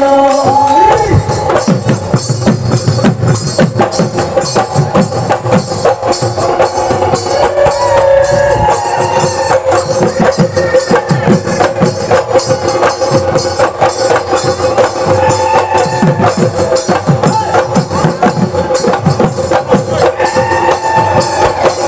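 Live Bihu folk music: Assamese dhol drums and other percussion beaten in a fast, steady rhythm, under a held, wavering melody line.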